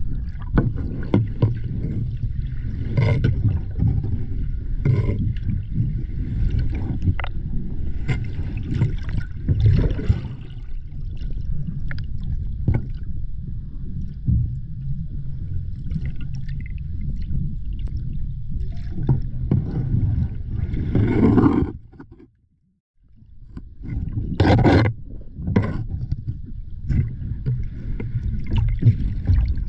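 Muffled underwater water noise picked up through a camera's waterproof housing as it is moved along a boat hull, a dense low rumble with louder swells every few seconds. It cuts out almost completely for about a second roughly three quarters of the way through.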